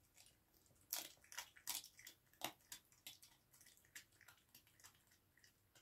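Red fox chewing raw chicken: a run of faint, irregular wet crunches and clicks, busiest in the first half and thinning out toward the end.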